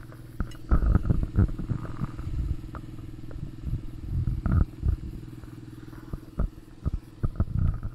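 A steady low engine hum runs throughout, overlaid by irregular low bumps and thumps of the microphone being handled as the camera is swung around.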